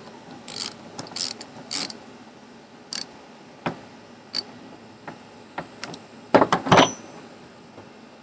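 Socket ratchet clicking in short, uneven strokes as it turns a nut on an Echo chainsaw's bar cover, followed at about six and a half seconds by a few louder metal knocks and clatters of tools against the saw.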